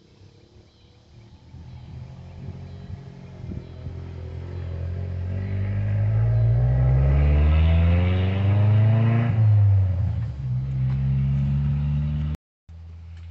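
A motor vehicle's engine revving up, its pitch climbing over several seconds to a loud peak, then dropping back and running steadily; the sound cuts out for a moment near the end.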